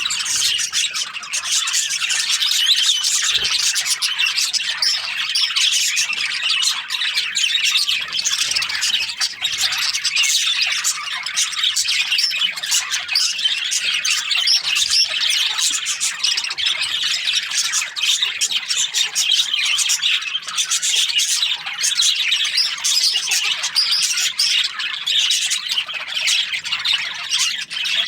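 A flock of budgerigars chattering and chirping: many short, high, overlapping calls in a dense, unbroken din.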